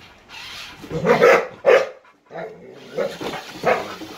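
Pit bull barking at a remote-control toy backhoe: several sharp barks in two bunches, one about a second in and another near the end.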